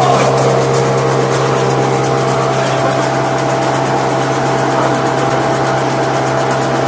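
SWC A 03 log wood chipper running steadily with a constant hum, without the bursts of chipping.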